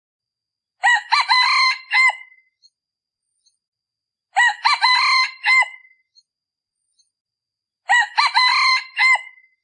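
A male decoy junglefowl rooster crowing three times, evenly spaced with silence between crows. It is a call used to lure wild red junglefowl.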